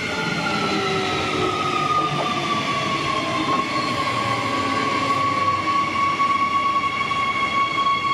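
Queensland Rail electric multiple-unit train passing along the platform: its motors whine, the tones gliding down in pitch over the first three seconds and then holding steady, over a constant rumble of wheels on the rails.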